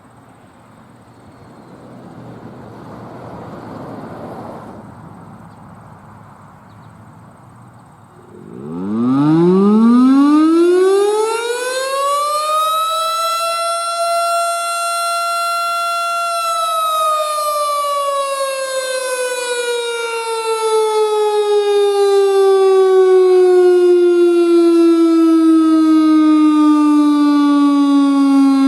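Federal Signal STH-10 outdoor warning siren being tested. It starts about eight seconds in, with its single tone rising quickly to full pitch. It holds steady for a few seconds, then begins a long, slow wind-down. Before it starts there is only faint outdoor background noise that swells briefly.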